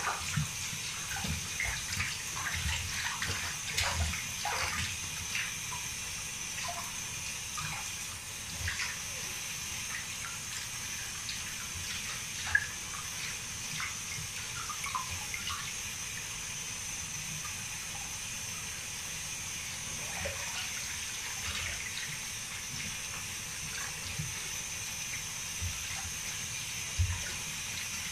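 Water sloshing and splashing in a plastic washbasin as hands scoop it over a chihuahua's back, with small irregular splashes over a steady hiss of running tap water.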